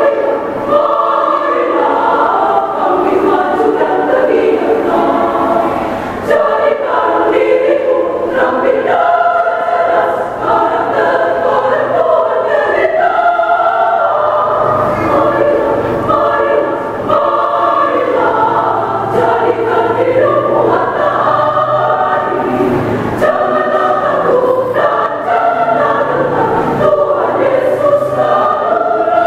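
A women's church choir of about thirty voices singing a march together, sustained and full throughout.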